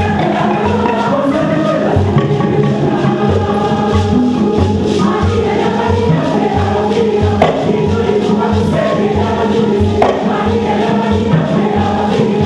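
Mixed choir singing a traditional Ganda gganda song, accompanied by hand drums beating a steady pulse of about two strokes a second and rattling gourd shakers.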